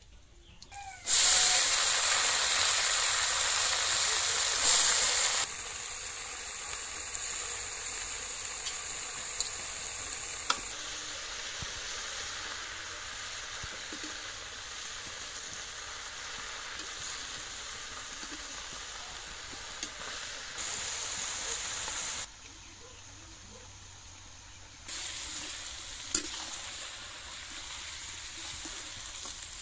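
Fresh spinach frying in hot oil in a wok, a sizzling hiss that starts suddenly about a second in and is loudest for the first few seconds. It then settles to a steadier sizzle as the greens are stirred with a spatula, with a few light scrapes and clicks.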